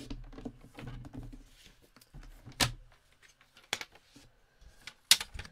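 Paper trimmer cutting a sheet of patterned card: the blade housing slides along its track with a low rubbing sound, then come a few sharp knocks as the trimmer and cut paper are lifted and set down, the loudest knock near the end.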